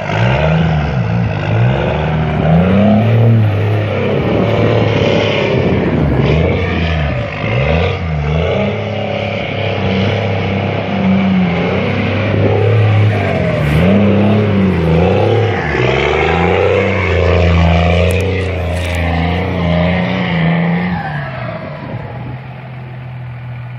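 Second-generation Dodge Ram's 5.9-litre Cummins inline-six turbo diesel revving up and down over and over as the truck spins donuts, then dropping to a steady idle near the end.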